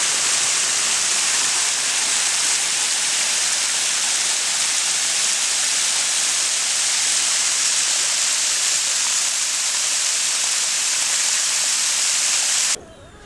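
Small waterfall: water falling and splashing over rocks in a steady hiss that cuts off suddenly near the end.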